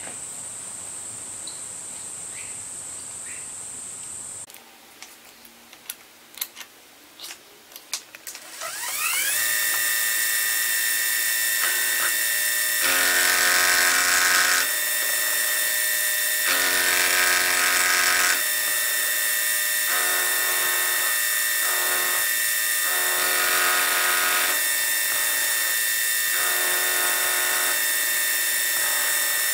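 Milling machine spindle winds up with a rising whine about eight and a half seconds in, then runs steadily as an end mill cuts a small slide-valve casting held in the vise. The noise swells louder in several stretches as the cutter bites. Before the spin-up there are a few light clicks.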